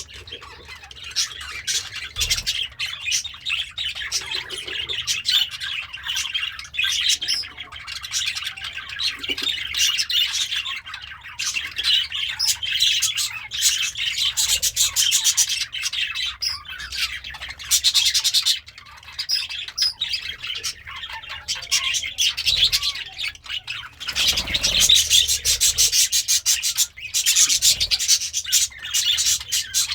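Budgerigar warbling and chattering without a break: a busy stream of chirps mixed with runs of rapid clicks.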